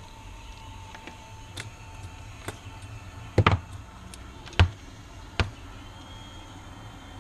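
About five sharp clicks and knocks of small hard objects being handled, the loudest a double knock about halfway through and a single one about a second later, over a steady low hum.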